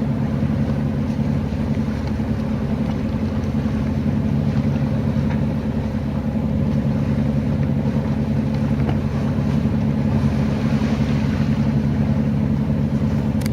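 Yacht's engine running steadily as the boat motors along on a calm sea, a constant low hum.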